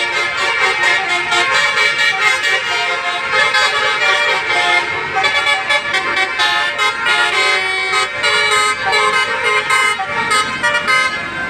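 Basuri multi-tone "telolet" bus horn playing a melody, its notes changing step by step with no break.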